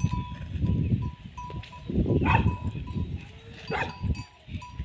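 Two short animal calls, about two and three and a half seconds in, over low rumbling noise.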